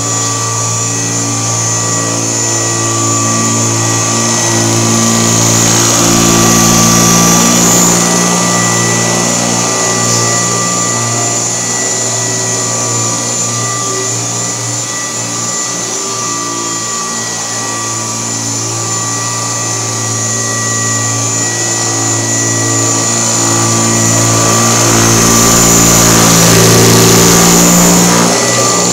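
1972 Kirby Classic 1CR vacuum cleaner running in portable mode on a mattress, its beater bar agitating and vibrating, with a steady motor hum and whine. It grows louder twice: about six seconds in, and again near the end.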